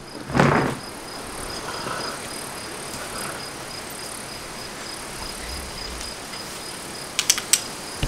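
An insect chirping steadily, a high note pulsing about three times a second, over a low background hiss. A short rustling noise comes just after the start and a few sharp clicks near the end.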